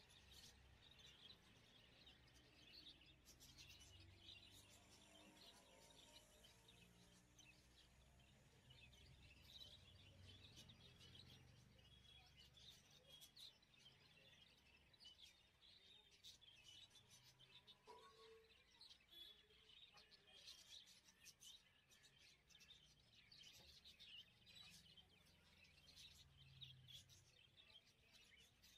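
Near silence: faint background with small birds chirping faintly.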